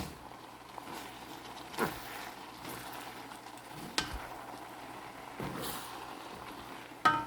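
Pancit (rice noodles) with chicken and vegetables being stirred in a hot pan: a faint steady sizzle, with the cooking utensil scraping and knocking against the pan several times.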